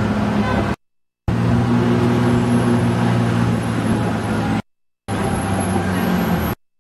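Sightseeing bus engine running steadily with street traffic around it, a low even hum; the sound drops out to silence three times.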